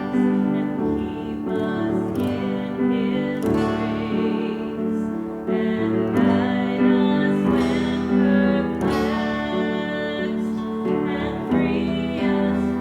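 Acoustic guitar music: chords strummed steadily, changing every second or so.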